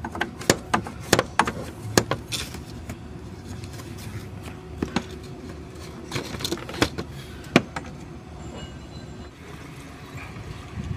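Irregular sharp clicks and knocks from hands working at the radiator's plastic bleed screw and the parts around it, over a steady low hum.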